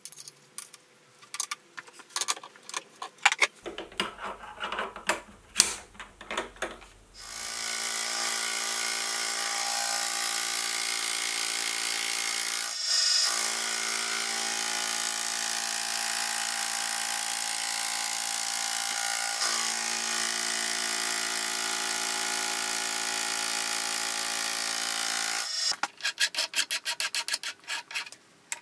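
Handling knocks and clicks as a workpiece is set in a milling machine vise, then a Sieg milling machine running steadily for about eighteen seconds, its spinning cutter facing a small piece of bar stock, with two short breaks. Near the end, quick regular strokes of a hand file deburring the part.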